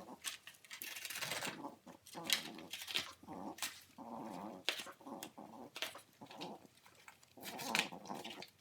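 French bulldog puppy making short, repeated growling noises while chewing and tearing cardboard, with sharp crackles from the cardboard in between.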